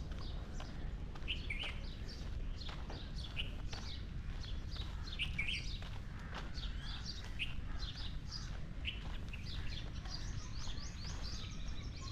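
Many birds chirping and calling in quick, overlapping short notes without pause, over a low steady rumble.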